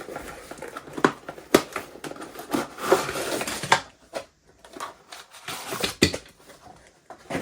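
Packaging being opened and handled by hand: rustling and crinkling with several sharp clicks and knocks.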